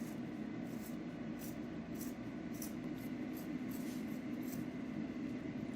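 Scissors making small snips through synthetic fur trim, about ten faint short cuts at irregular intervals.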